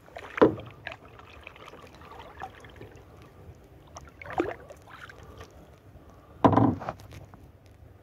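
Canoe paddle strokes: three loud dips of the paddle in the water, about half a second in, about four seconds in and about six and a half seconds in, with faint water sounds between.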